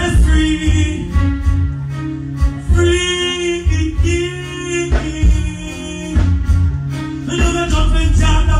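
Live reggae music over a PA: a male voice singing into a microphone over a band with heavy bass.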